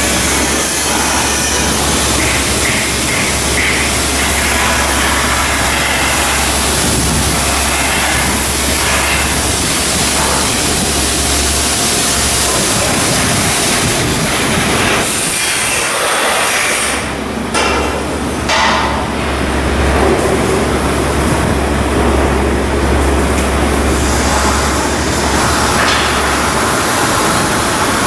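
Shipyard work noise: a loud, steady mechanical din from work on a ship under construction, easing briefly about two-thirds of the way through before carrying on.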